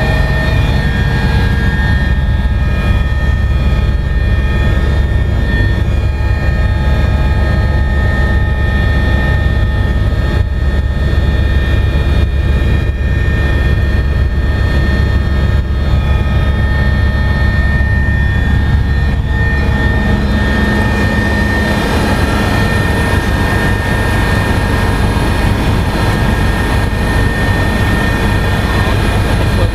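Cabin noise of an Agusta A109S Grand twin-turbine helicopter in cruise flight: a steady high whine over a heavy low rumble. The low rumble eases somewhat about twenty seconds in.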